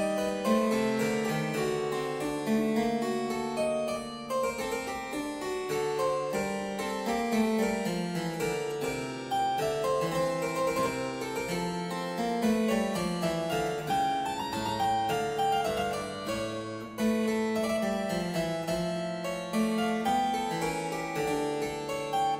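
Instrumental background music on a keyboard instrument: a continuous flow of quick notes, with a bass line under a higher melody.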